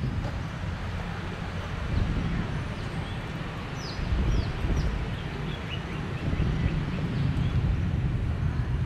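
Outdoor park ambience: a steady low rumble, with a few short falling bird chirps about four seconds in and fainter ones later.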